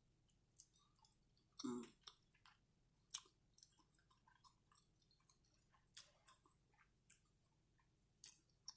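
Faint close-miked chewing of a chicken and cheese quesadilla: scattered soft mouth clicks and smacks, with one slightly longer, louder mouth sound a little under two seconds in.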